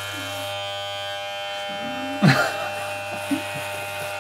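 Corded electric hair clippers running with a steady electric buzz while trimming a man's beard. A brief voice sound a little past halfway is the loudest moment.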